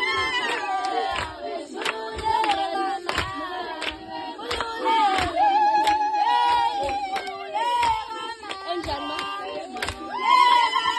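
A group of female voices singing a Zulu song together, a high melody with a wavering vibrato, over sharp hand claps keeping a steady beat.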